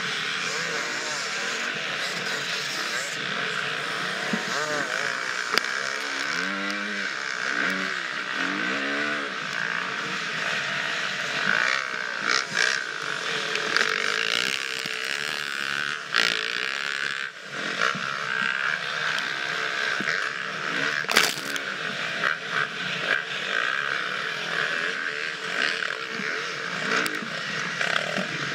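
Husqvarna FX 350 four-stroke single-cylinder dirt bike engine being ridden hard off-road, its revs rising and falling as the throttle opens and closes. A few sharp knocks from the bike over rough ground.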